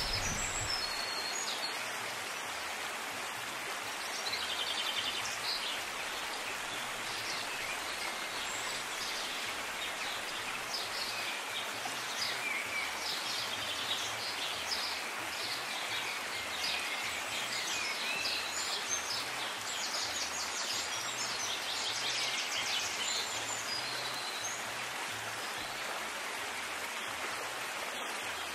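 Outdoor ambience: a steady, even hiss with many birds chirping and calling throughout.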